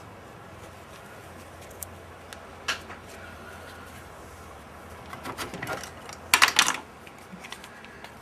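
Excess glue being wiped off a freshly clamped keycap: a few light clicks, then quick rubbing strokes about six seconds in, the loudest of them.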